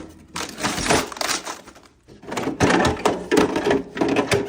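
Plastic disposable litter tray filled with silica crystal litter being handled and set into a self-cleaning litter box: repeated rustling, scraping and clattering, with the crystals rattling.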